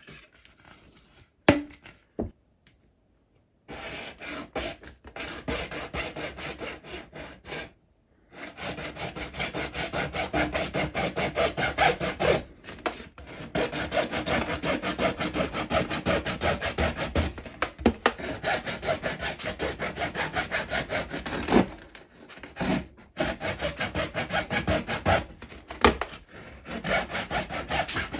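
A small hacksaw cutting through a white plastic pipe with fast back-and-forth strokes, a dry rasping scrape. The sawing starts about four seconds in, after two sharp clicks, and stops briefly a few times before going on.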